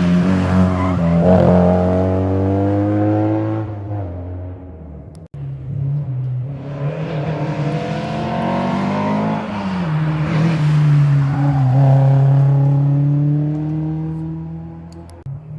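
Historic rally cars driven hard on a closed stage, one after another. The first engine revs and fades away. After an abrupt cut a second engine accelerates with its pitch climbing, drops about ten seconds in, then holds a steady high note and fades toward the end.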